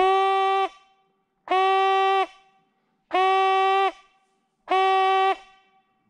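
Brass hunting horn blown in four long blasts on one steady note, each under a second and about a second and a half apart, each trailing off in a short echo.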